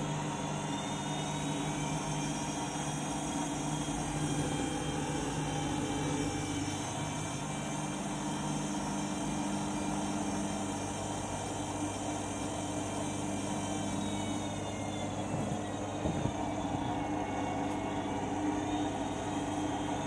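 Front-loading washing machine running at the end of its main wash: a steady motor hum and whine as the drum turns a wet, sudsy load, the pitch drifting slowly up and down.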